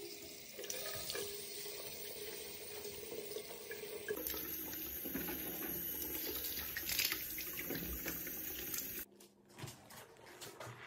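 Bathroom tap running steadily into the sink, shut off suddenly about nine seconds in.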